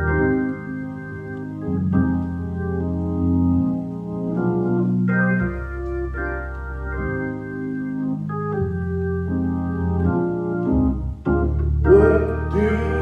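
Organ playing sustained chords that change every second or two, opening a sung musical selection; a voice begins singing near the end.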